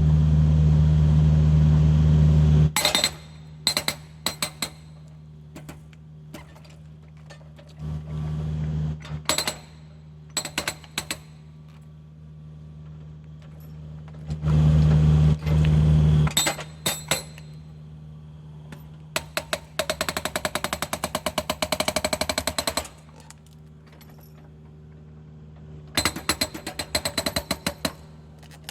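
Hydraulic excavator fitted with a hoe ram (hydraulic breaker). The engine runs loud at the start and twice more briefly, with scattered sharp knocks between, and the breaker hammers in a rapid, even rattle for about three seconds past the middle and again briefly near the end.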